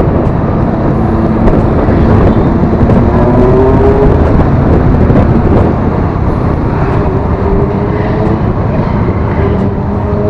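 Motorcycle engines accelerating on the move, their pitch rising in several slow sweeps one after another, over a loud steady rumble of wind on the microphone of a moving scooter.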